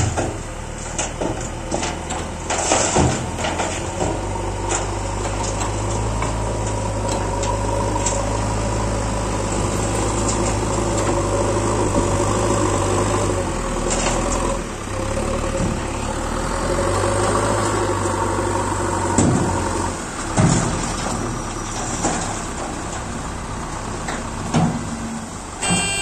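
Diesel engine of a tipper truck running steadily while its hydraulic hoist lifts the body to dump a load of soil, with a faint whine over the engine note; the engine sound drops away about twenty seconds in. Scattered sharp knocks occur throughout.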